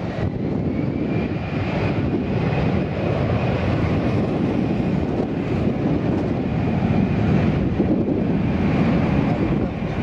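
Airbus A380-861's four Engine Alliance GP7270 turbofans on final approach: a steady jet rumble with a thin whine above it.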